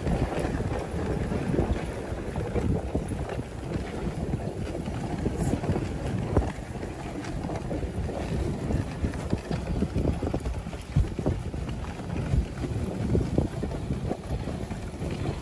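Husky-drawn sled running over packed snow: a steady rumble and scrape of the runners with frequent small knocks as the sled jolts along, and wind buffeting the microphone.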